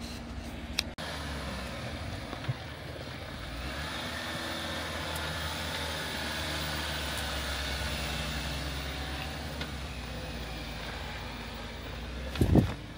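Off-road 4x4's engine running steadily as the vehicle crawls along the trail, swelling a little in the middle. There is a brief loud knock near the end.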